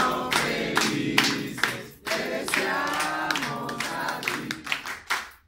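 A group of people singing a birthday song together, with rhythmic hand clapping in time. The singing breaks off briefly about two seconds in, resumes, and dies away near the end.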